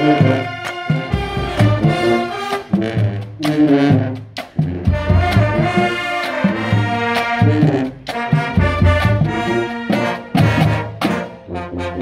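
Marching band playing outdoors: brass and woodwinds, fitted with lefreQue sound bridges, sound sustained chords over marching snare, tenor and bass drums keeping a steady beat, with short breaks between phrases.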